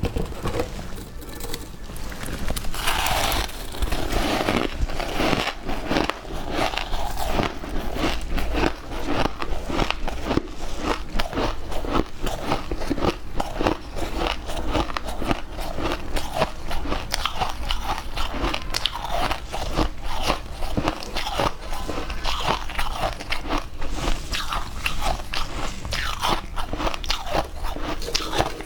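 Close-miked crunching of hard, clear ice being bitten and chewed: dense, irregular cracks and crackles of ice breaking between the teeth, with no pause.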